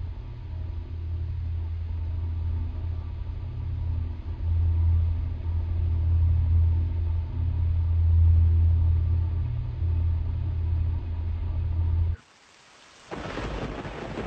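A loud, deep low rumble lasts about twelve seconds and cuts off abruptly. After a second of near silence, the steady hiss of falling rain begins.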